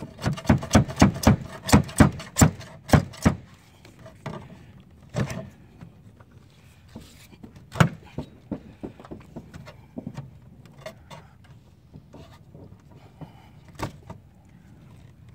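A steel pry bar scraping and chipping old, built-up sealant off a metal plumbing vent flashing. It starts with a quick run of sharp scrapes, about four a second, for the first three seconds, then comes in scattered single strokes, with a louder one about eight seconds in.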